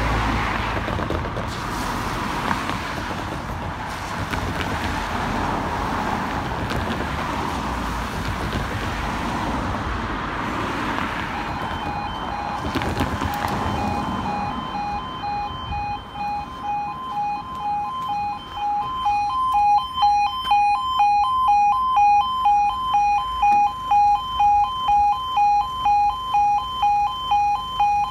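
Level crossing warning alarm starting about a third of the way in: a pulsing two-tone electronic yodel at roughly two pulses a second, growing louder past the halfway point. Before it, the noise of road traffic at the crossing.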